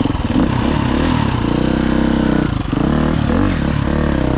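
Dirt bike engine revving under load, its pitch rising and falling with the throttle, with a brief drop about two and a half seconds in.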